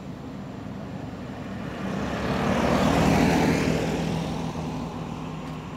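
A motor vehicle passing on the road: its engine and tyre noise grow louder to a peak about three seconds in, then fade away.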